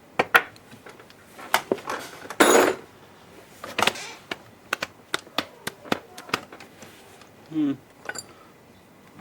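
Small metal parts of a car air-conditioning compressor clinking and clattering as they are handled and set down, a scatter of sharp clicks and knocks with one longer scrape about two and a half seconds in.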